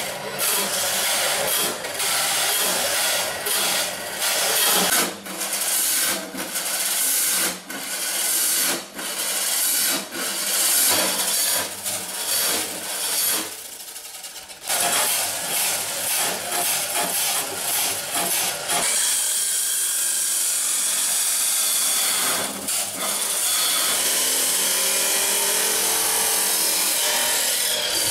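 Angle grinders cutting through confiscated metal motorcycle exhaust mufflers, a loud grinding that keeps dipping as the discs bite and ease off. It breaks off briefly about halfway through and runs steadily through the last third.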